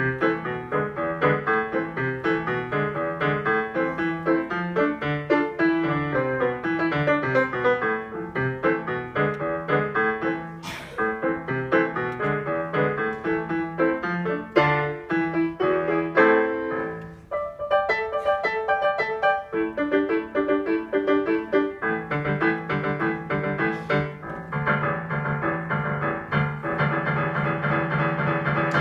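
Digital piano being played solo: a steady run of notes in repeating patterns over a bass line, with a brief break about seventeen seconds in.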